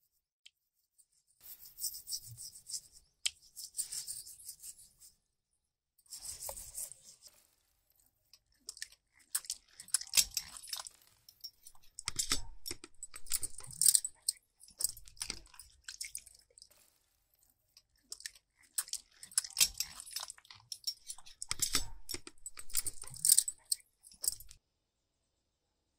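Goat head and legs being scraped clean: bouts of quick scraping strokes separated by short pauses, with a few dull knocks.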